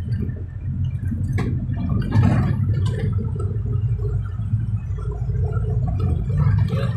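Steady low rumble of a moving vehicle's engine and tyres heard from inside the cab, with a few short knocks about one and a half, two and three seconds in.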